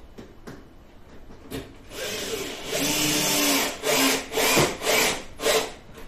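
Cordless drill-driver driving a screw through the dishwasher door into the wooden furniture panel: the drill starts about two seconds in, runs steadily, then works in about four short bursts as the screw bites and pulls the panel up tight.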